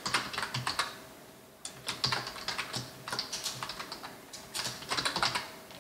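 Computer keyboard being typed on: quick bursts of key clicks with short pauses between, the longest pause about a second in.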